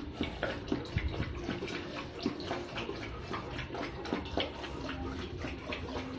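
Golden retriever lapping at its bowl: quick, irregular wet laps, several a second, with small clicks against the bowl.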